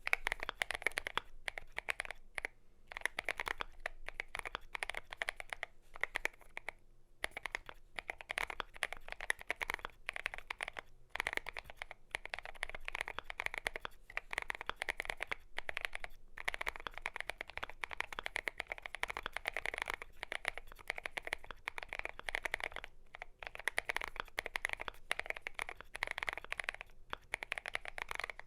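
Continuous fast typing on a Glorious GMMK Pro mechanical keyboard with lubed Gazzew Boba U4T tactile switches and MT3 keycaps: a steady stream of deep, muted keystroke clacks, with a few short pauses.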